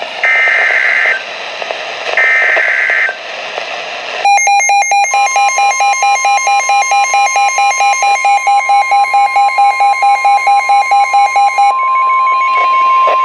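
Two short bursts of EAS/SAME digital data tones, the end-of-message signal that closes the flash flood warning. About four seconds in, a weather radio receiver's alert goes off: fast electronic beeping, about five beeps a second, over the steady 1050 Hz NOAA Weather Radio warning alarm tone. The beeping stops near the end while the alarm tone carries on, heralding a new warning.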